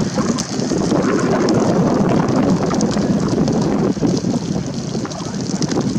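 A de Havilland DH.60 Moth biplane's piston engine droning as it flies low past, mixed with a heavy, steady rumble of wind buffeting the microphone.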